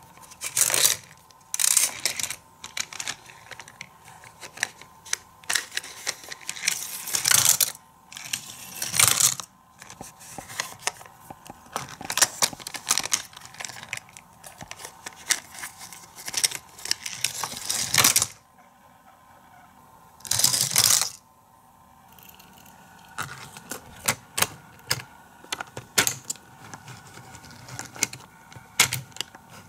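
Hot Wheels diecast toy cars and the plastic Turbo Garage playset clattering: repeated sharp clicks and knocks, with several short rolling and rattling runs of about a second each.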